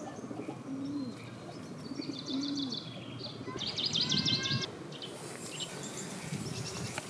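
Pigeons cooing, two low soft coos about a second and two seconds in, with small birds chirping, a louder burst of chirps about four seconds in.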